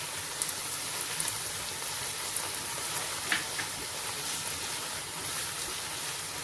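Onion and bell pepper frying in oil in a pan on a high flame, a steady sizzling hiss with a few light clicks.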